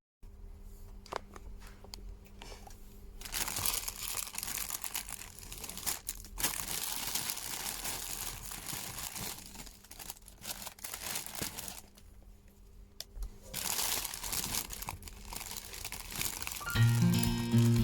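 Packaging crinkling and rustling as a gift box is unwrapped by hand, in stretches with short pauses. Music comes in near the end.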